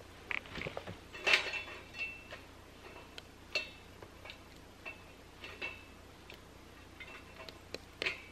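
Irregular metallic clinks and taps, a dozen or so, each ringing briefly, the loudest about a second in: a metal utensil knocking against a small stainless steel camp stove.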